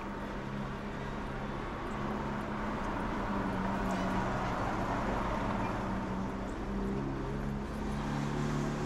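A vehicle engine running steadily at low speed, a low, even hum that shifts pitch slightly near the end, over a wash of general street noise.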